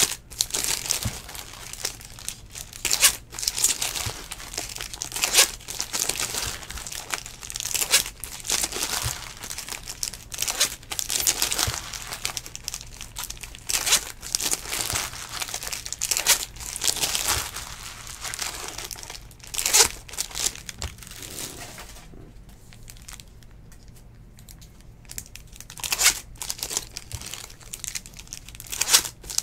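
Foil trading-card pack wrappers crinkling and tearing as packs are ripped open, with cards handled in between. The crinkling comes in repeated bursts, with a few quieter seconds about three quarters of the way through.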